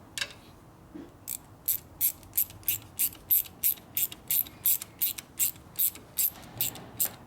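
Hand ratchet clicking in a steady rhythm, about three sharp clicks a second, starting about a second in, as a stainless steel hose clamp on the oil breather line is tightened.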